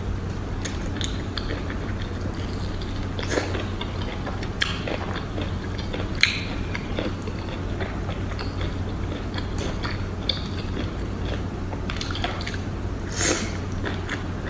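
Close-up eating sounds: wet biting and chewing of octopus in a thick sauce, with a few short sharp smacking clicks, the loudest about six seconds in and more near the end, over a steady low hum.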